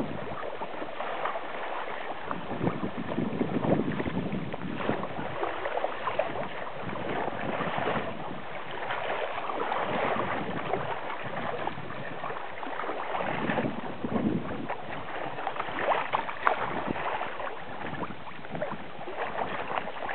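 Water splashing and lapping around a kayak as it is paddled, with small crackles of spray and some wind on the microphone.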